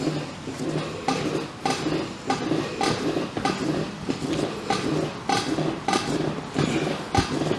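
Regular sharp knocks or slaps, a little under two a second, evenly spaced, over a low steady tone.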